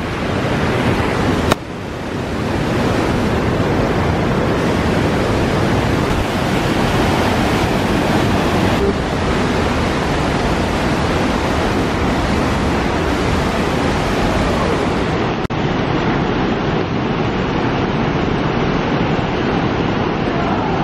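Loud, steady rush of waterfalls and cascading stream water in a narrow rock gorge, with one brief dip about fifteen seconds in.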